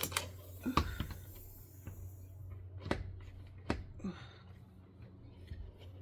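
A few light clicks and knocks of small hardware being handled at a screen door, spaced out over several seconds, over a steady low hum.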